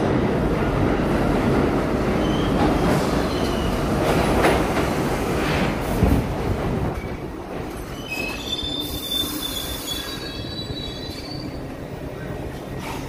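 R62A subway train pulling into the station: its wheels rumble loudly over the rails, the sound dies down as it slows, and the wheels and brakes squeal in short high tones as it comes to a stop, with a brief hiss about two-thirds of the way through.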